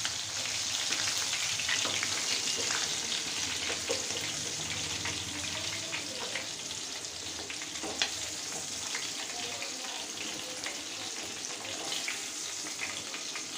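Chicken pieces frying in hot oil in a pan: a steady sizzle peppered with small crackling pops, and one sharper click about eight seconds in.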